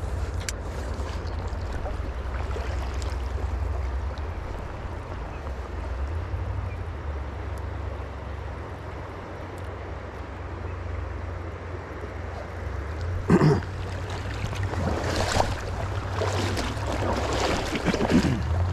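River water rushing steadily, with wind buffeting the microphone as a low rumble. A few brief louder noises come about two-thirds of the way in and again near the end.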